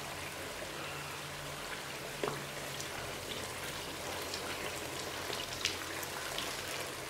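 Desi ghee bubbling and sizzling in a hot pan around semolina halwa, an even frying crackle with a few sharper pops about two seconds in and near the end.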